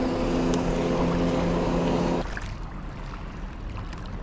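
Motorboat engine running at a steady pitch, a low even drone that drops away abruptly about two seconds in, leaving a quieter background of water and wind.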